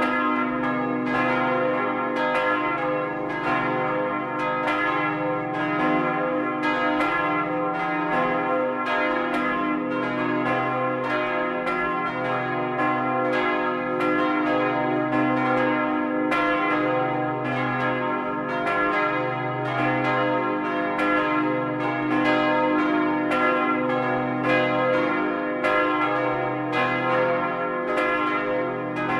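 The four church bells cast in 1952 by Karl Czudnochowsky swinging and ringing together in a full peal, heard from close up inside the bell tower. Their clapper strikes overlap at a little over one a second over a continuous ringing hum.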